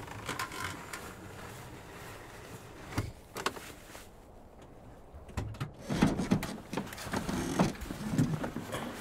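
Scattered small clicks, knocks and rustling inside a camper van cabin, with a quiet spell around the middle and busier handling sounds in the second half.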